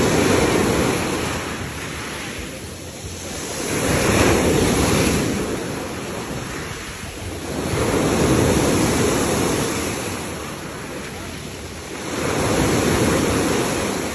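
Sea waves breaking on a fine-pebble shore and washing up over the stones, swelling and fading about every four seconds, four surges in all.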